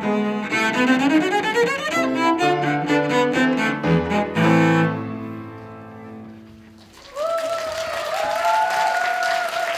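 Solo cello finishing a piece: a fast rising run and heavy low chords, then a last note that fades away about six seconds in. Applause breaks out about seven seconds in, with one voice holding a long cheer over it.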